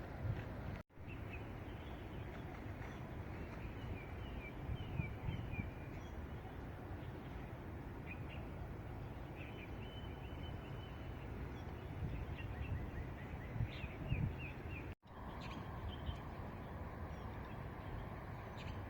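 Small birds chirping and calling in short notes, with one held whistle partway through, over a steady low outdoor rumble. The sound drops out for an instant twice.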